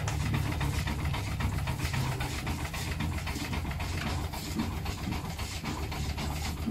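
Green & Son 'Economiser' portable steam engine running steadily and driving a flat belt: a low hum under a fast, even clatter of the working parts.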